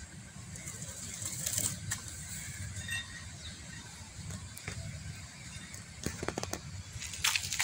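Rustling and light crackling in grass and dry fallen leaves, with a cluster of sharper crackles near the end, over a steady low rumble.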